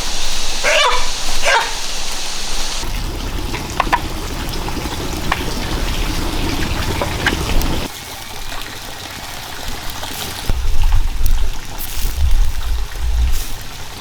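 A few short, sharp animal calls in the first two seconds, then low rumbling noise and some dull knocks.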